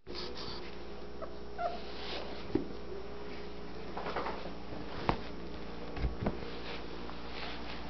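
Twelve-day-old Anatolian Shepherd Dog puppies giving a few short, faint squeaks and whimpers as they crawl about, with several sharp knocks, the loudest about five seconds in, over a steady low hum.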